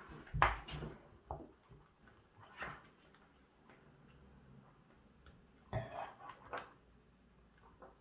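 Handling noise from a round lamp base and its cable on a tabletop: short knocks and clatter as the base is lifted, tipped on its edge and set down, in a cluster in the first second, a single knock about a third in, and a louder group about three-quarters through.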